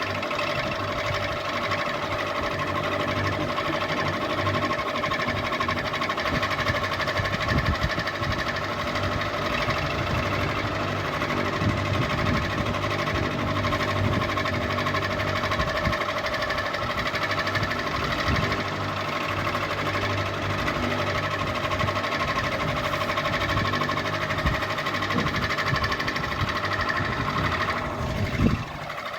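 Ceiling fan running with a steady motor hum and an uneven rattling knock underneath. Near the end the hum drops in pitch and gets quieter.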